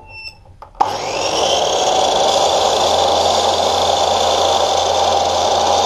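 Electric mitre saw switched on about a second in, its motor spinning up to a steady whine and running at full speed as the blade is lowered to crosscut a dressed pine board.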